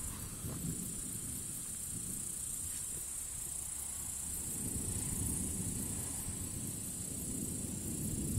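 Crickets chirring steadily in one continuous high band, over a low rumble that swells about five seconds in and again near the end.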